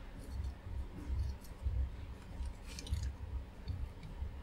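Fingers handling a small circuit board and its white plastic connector housing: dull low knocks and rubbing, with light plastic clicks, a cluster of them about three seconds in.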